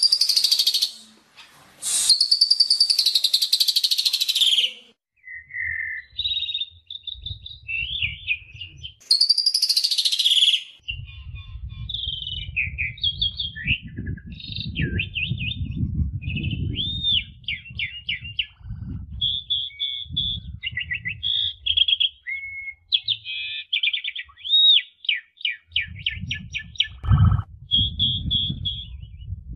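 Songbird tutor recording: loud, harsh rough calls at the start and again about nine seconds in, then a quick run of short, varied notes and rapid trills. These are the rough 'shot' notes used to train contest songbirds. A low rush of flowing water sits beneath from about eleven seconds on.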